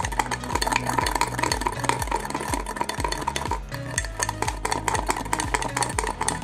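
A metal spoon beating instant coffee, sugar and a little water in a cup by hand, clicking rapidly and steadily against the cup as the mixture is whipped to a froth. Background music plays underneath.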